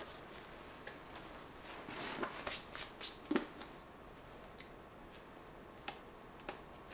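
Faint handling sounds of a plastic-wrapped book: soft rustles and a few light clicks and taps, bunched together in the middle, with a couple of single ticks near the end.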